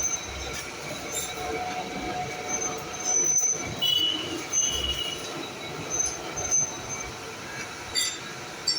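Milling machine cutting gear teeth into a metal shaft: a steady machining noise with short, high-pitched metallic squeals coming and going, and a few sharp clicks.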